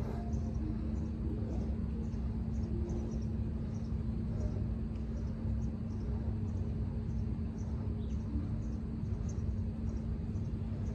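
Outdoor ambience: a steady low rumble and hum under short, high chirps repeating about twice a second.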